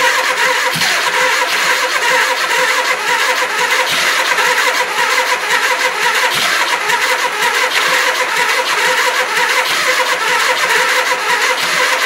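Electric starter cranking a 1979 Suzuki GS425L's parallel-twin engine without it firing: a steady whine that cuts off at the end. The engine is turning over but not catching after a carburetor rebuild, on a battery that is not fully charged.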